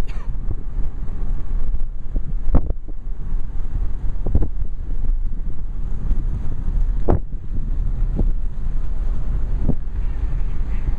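Car driving slowly, a steady low engine and road rumble heard from inside the car, with wind buffeting the microphone. A few short knocks come through at irregular intervals.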